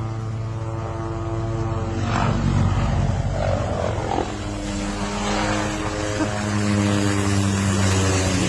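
Small helicopter flying overhead, with a steady engine and rotor drone. It grows louder about two seconds in, and its tones drop a little in pitch about halfway through.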